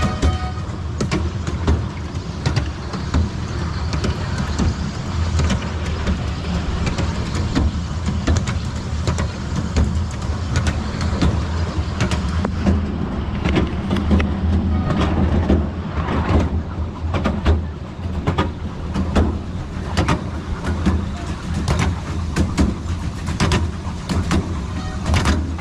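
Miniature railway train running along its track, heard from on board: a steady low rumble with frequent irregular clicks and rattles from the wheels and carriage.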